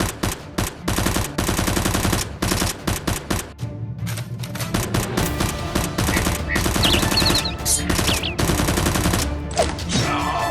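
Several bursts of rapid automatic gunfire, with short pauses between them and music underneath.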